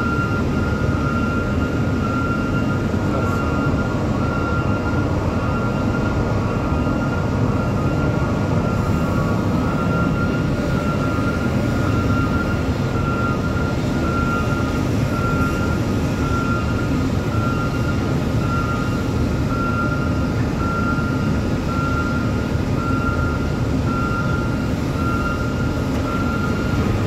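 Steady heavy industrial rumble of a steel-plant shop while a crane-held ladle pours molten iron, with a thin high tone that pulses about once a second over it.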